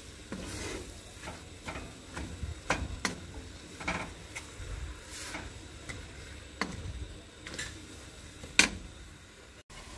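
Irregular clicks and knocks of a kitchen utensil against cookware, as onions sautéing in a pan are stirred. The loudest knock comes near the end.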